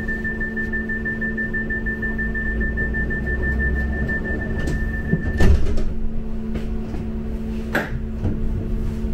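Inside a Bombardier M5000 tram moving slowly along a platform: a steady electric hum and low rumble. A thin high tone holds until a loud clunk about five and a half seconds in, and a sharp knock follows about two seconds later.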